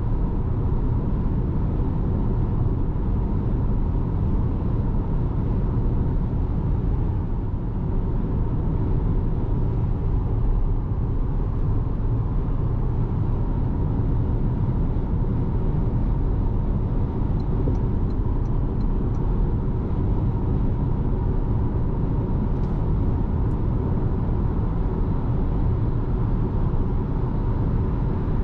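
Steady cabin noise of a 2026 Toyota RAV4 hybrid on the move: an even, low road-and-tyre rumble with no change in pace.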